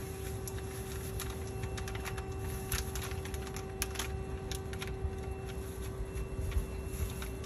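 Popcorn kernels being emptied from a packet into a popcorn machine's steel kettle: scattered sharp clicks and rattles, irregular, over a steady low hum.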